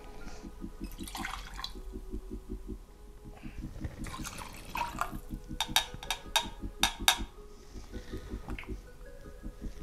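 Liquid pouring into a metal bar jigger and a steel shaker tin, twice, with a quick run of six sharp clicks about six seconds in, which are the loudest sounds. Background music with a steady beat runs underneath.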